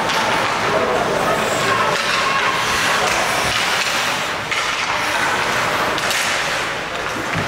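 Ice rink sound during youth ice hockey play: skate blades scraping and carving the ice and sticks on the puck, with indistinct voices under it. A sharp knock comes a little past halfway.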